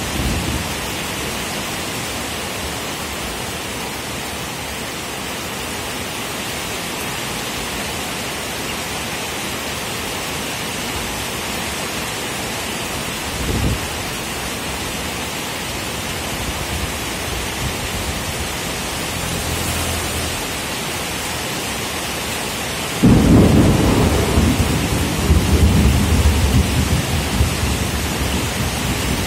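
Steady heavy rain falling, with a brief low thunder rumble about halfway through. Near the end a loud peal of thunder starts suddenly and rumbles on, slowly fading.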